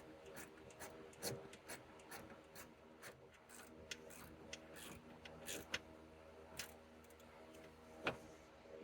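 Faint clicking of a ratchet and socket tightening a 5 mm bolt into plastic on a car door handle bracket, with irregular sharper clicks, the loudest about eight seconds in.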